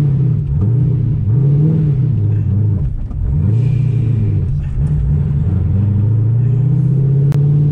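A 2008 Corvette's supercharged, big-cam built LS3 V8 at low revs, its pitch rising and falling several times under light, uneven throttle. The big cam and blower make it hard to drive smoothly at low rpm.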